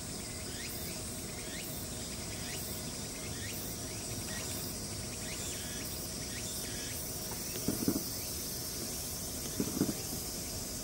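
Steady high insect chorus with a short downward-sliding chirp repeating about once a second. Two brief low sounds come near the end, about two seconds apart.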